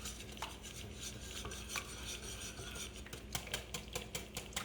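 Eggs being beaten by hand in a bowl: a utensil stirring and scraping, which about three seconds in turns to fast, even clicking against the bowl, about five strokes a second.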